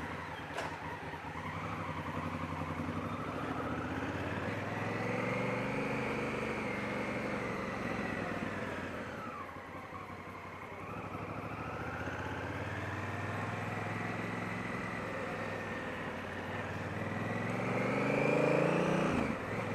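Honda Africa Twin's parallel-twin engine running at low speed, its pitch rising and falling as it pulls away, easing off about halfway through and picking up again, heard through a helmet-mounted microphone with some wind hiss.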